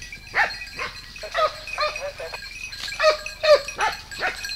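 Boar-hunting hounds baying on wild boar: a quick run of yelping bays, each falling in pitch, from several dogs at once.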